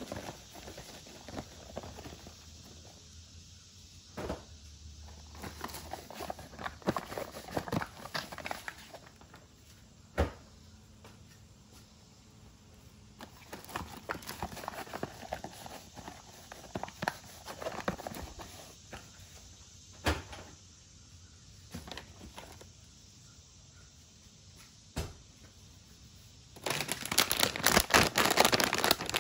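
Grocery packaging and plastic bags rustling as items are handled on a countertop, with a few sharp knocks as things are set down. Near the end comes a loud stretch of crinkling and tearing as a package is ripped open.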